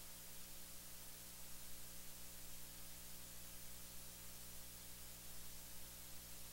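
Steady hiss with a low electrical hum under it: a recording's noise floor, with no other sound above it.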